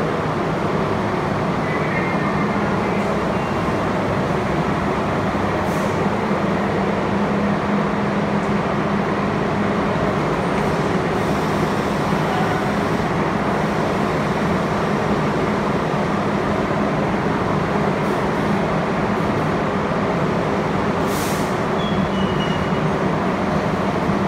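R32 subway train standing at an underground platform, running with a steady hum. There is a short hiss near the end.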